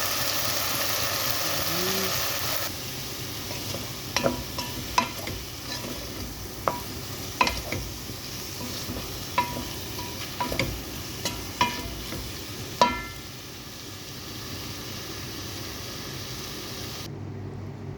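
Sliced beef sizzling in a hot pan, loudest for the first few seconds. It is then stirred, and a utensil clacks against the pan about a dozen times, some strikes ringing briefly, over a softer sizzle.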